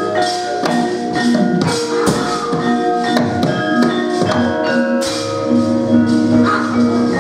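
Javanese gamelan playing: bronze metallophones ring on held notes while sharp percussive strokes cut in every second or so.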